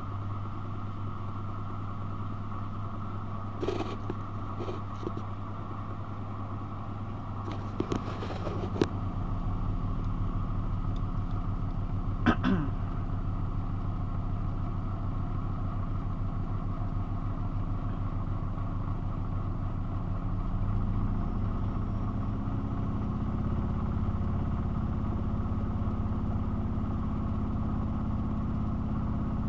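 Miele washing machine's drum motor running steadily, with a few sharp clicks in the first half, then climbing in pitch about two-thirds through as the drum speeds up for the first interim spin after the main wash.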